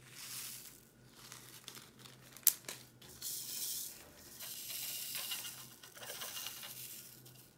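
Small plastic zip bag of round resin diamond painting drills crinkling as it is opened, then the drills tipped into a ridged plastic tray and shaken to settle into rows, a soft rattling hiss. A single sharp click comes about two and a half seconds in.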